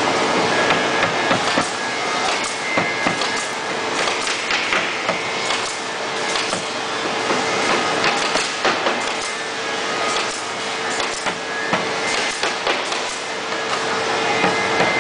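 A mallet repeatedly knocking wooden backrest parts of a glider bench together during assembly, in irregular runs of sharp knocks. A steady machinery hum with a constant tone runs underneath.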